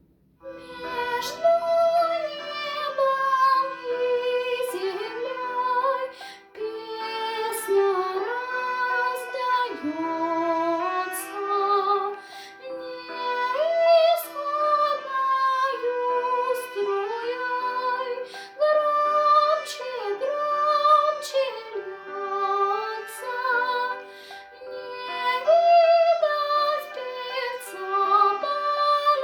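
A child singing a melodic song solo, with vibrato on held notes, over instrumental accompaniment with regularly struck chords.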